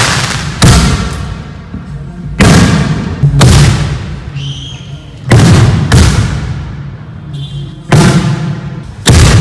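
Fireworks going off in quick succession, about seven loud bangs, each followed by a long echo that dies away over a second or so.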